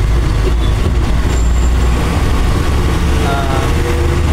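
Bus engine running under way with a steady, heavy low rumble, heard inside the driver's cab.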